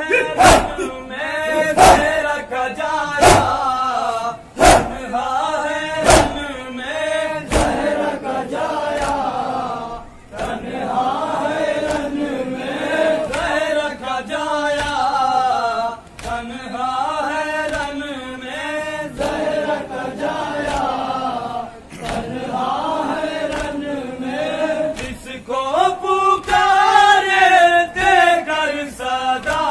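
Men chanting a nauha together in chorus while beating their chests in matam. Sharp hand slaps on the chest come about every second and a half in the first several seconds and are the loudest sounds. The chanting grows louder near the end.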